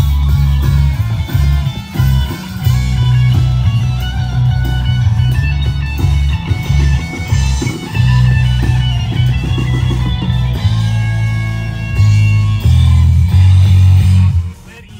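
A live rock band playing through amplifiers: electric guitar and bass guitar over drums. The music drops off near the end.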